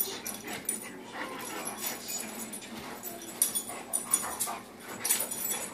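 Two dogs play-fighting: scuffling with short dog vocal noises, and two sharp knocks a little past the middle.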